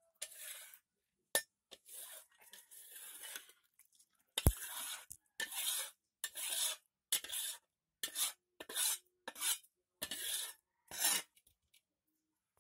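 Wooden spatula scraping and knocking while cooked chicken is served into a plastic bowl: a run of short scrapes about once a second, with a sharp knock about four and a half seconds in.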